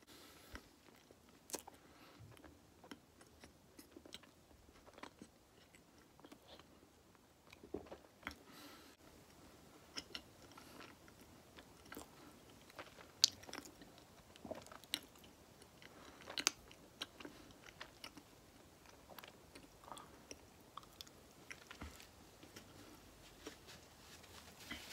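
A person chewing a large mouthful of soft snack cakes with closed lips: faint, scattered wet clicks and smacks from the mouth, a few of them louder.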